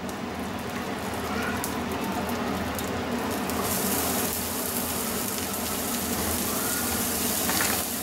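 Chopped onions sizzling in hot oil with mustard seeds and urad dal in a frying pan. The sizzle gets brighter and a little louder about halfway through.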